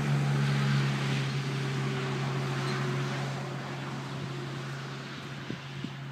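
A motor or engine running steadily with a low hum, growing gradually quieter.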